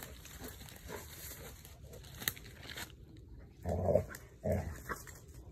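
A dog gives two short, low vocal sounds about four seconds in while it tugs at a fallen stick. Dry leaves and twigs crackle and rustle under it.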